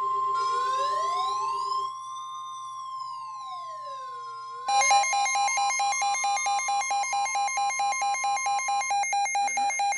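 Electronic emergency-alert tones for a severe thunderstorm warning. A steady high tone sounds, with a siren wailing slowly up and down over it in cycles of about four seconds. About five seconds in, a rapidly pulsing alarm tone joins in, and the steady tone stops near the end.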